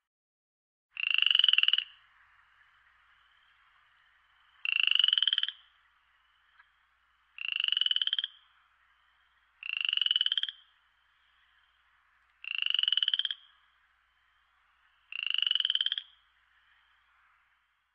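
A frog calling six times, each call about a second long and made of rapid pulses, spaced two to three seconds apart over a faint steady background hum.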